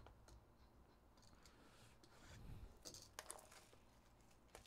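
Faint scrapes and clicks of a cardboard trading-card hobby box being handled and opened, with a short cluster of scraping a little after the middle and a click near the end.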